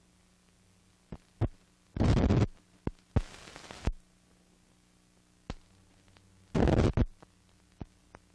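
Old film soundtrack noise over blank footage: a steady low hum with scattered clicks and pops, and loud bursts of crackling static about two seconds in and again about six and a half seconds in.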